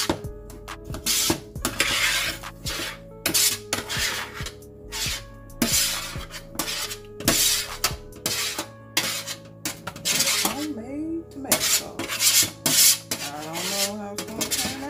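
Food processor run in short pulses, many brief chopping bursts in quick irregular succession as its blade cuts up roasted tomatoes, onions and garlic.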